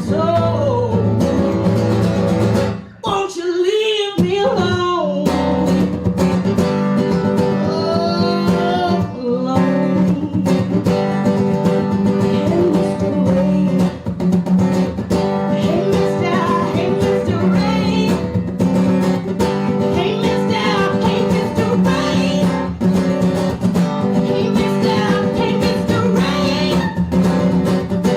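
Live blues band music with guitar prominent. The sound dips briefly about three seconds in, then a bending, wavering melody line comes in over the band.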